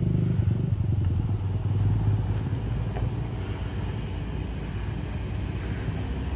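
Diesel engine of a large intercity bus running under load as it climbs a rough, unpaved slope: a steady low drone, loudest in the first two seconds, then a little quieter.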